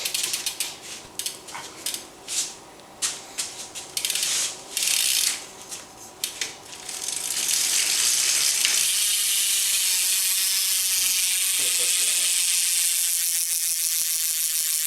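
Mission React V3 sealed cassette hub on a BMX rear wheel freewheeling with its pawl clicking: a few short bursts of ticking for the first seven seconds or so, then a steady fast buzz as the wheel spins freely.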